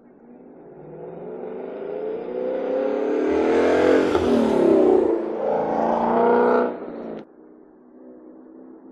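2017 Ford Mustang GT's 5.0 Coyote V8 through a Corsa Xtreme cat-back exhaust, accelerating hard. The engine note climbs in pitch and loudness for about four seconds, drops back and climbs again, then cuts off abruptly about seven seconds in.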